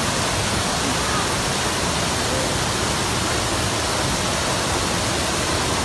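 Muddy floodwater rushing through a street in a flash flood: a steady, unbroken roar of water.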